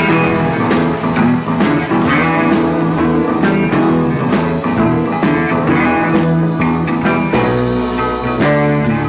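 Live honky-tonk country band playing a song's instrumental intro: guitars over bass and drums with a steady beat.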